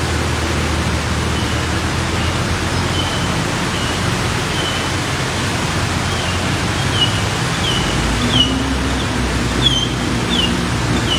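Road traffic wading through a flooded street: a steady rush of water churned and splashed by tyres, with vehicle engines running and an engine hum rising near the end. A run of short, high chirps sounds over it, more often in the second half.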